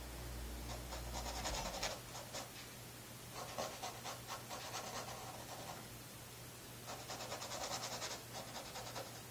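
Paintbrush scrubbing oil paint onto canvas while blocking in a loose underpainting: three runs of quick, scratchy strokes, the middle one the longest, with short pauses between.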